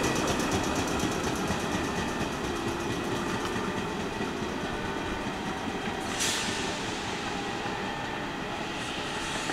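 JR West 115 series electric train pulling away, its running noise and steady whine fading as it recedes. A short sharp high-pitched noise comes about six seconds in.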